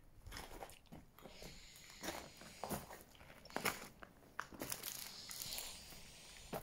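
Footsteps crunching irregularly on dry leaves, twigs and rubble, with scattered sharp crackles.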